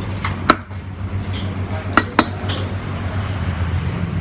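Cleaver knocking against a thick wooden chopping block beside a whole roast chicken: two pairs of sharp knocks, the second pair about a second and a half after the first, over a steady low background hum.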